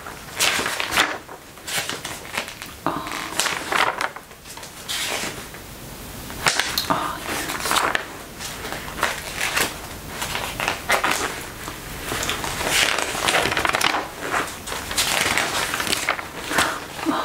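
Glossy magazine pages being turned and handled: repeated irregular paper swishes and crinkles, mixed with the creak of leather clothing as the arms move.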